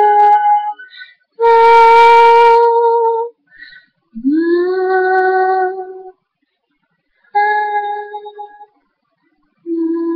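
A woman singing alone, holding long notes one after another with short silences between them; one note scoops up into pitch at its start, about four seconds in.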